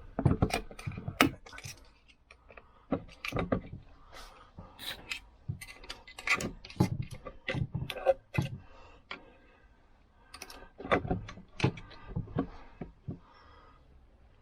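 Irregular clicks and knocks of metal parts and hand tools as the kickstart side casing of a Lambretta Li125 engine is worked loose and lifted off.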